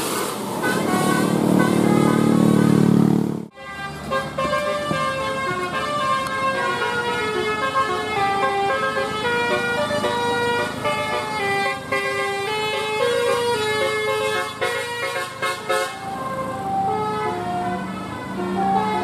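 Bus 'telolet' multi-tone air horn playing a quick melody of short stepped notes. Before it, a loud low drone cuts off suddenly about three and a half seconds in.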